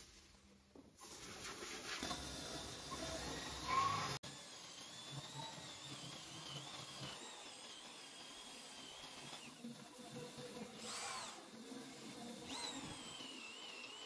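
Electric power tool motor running with a high, wavering whine. The sound breaks off suddenly and changes about four seconds in, and the pitch swings down twice near the end.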